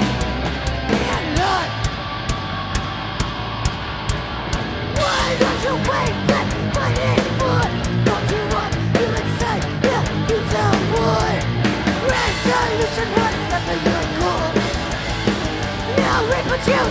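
Hardcore punk band playing live: distorted electric guitar and drums, with yelled vocals. The sound thins to guitar and steady drum hits at first, and the full band comes in denser about five seconds in.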